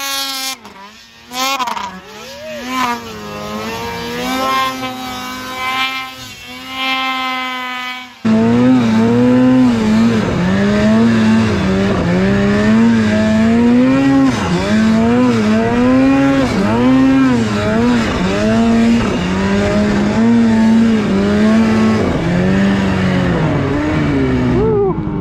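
Snowmobile two-stroke engine revving and easing off again and again as the sled ploughs through deep powder, heard at a distance. About eight seconds in it switches abruptly to a much louder snowmobile engine heard close up from on board, its pitch rising and falling repeatedly with the throttle along the trail.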